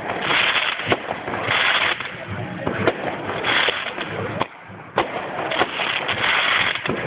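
Fireworks going off: sharp bangs and cracks at irregular intervals over a continuous crackling hiss.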